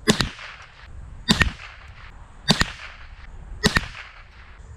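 Remington 597 semi-automatic .22 LR rifle firing CCI Mini-Mag 40-grain high-velocity rounds: four sharp shots about 1.2 seconds apart, each followed by a short echo, metered at up to 105 dB.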